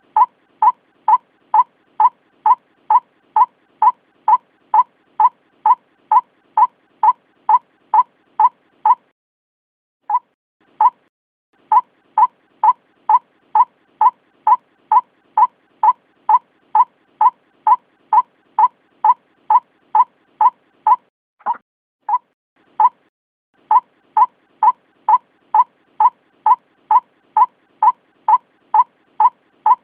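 White-breasted waterhen repeating a short, clipped call about twice a second in long even runs, with two brief breaks. A lure call of the kind used to draw waterhens in.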